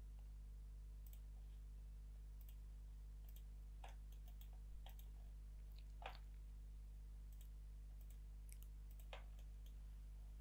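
Near silence: a steady low electrical hum with a few faint computer mouse clicks, the loudest about six seconds in.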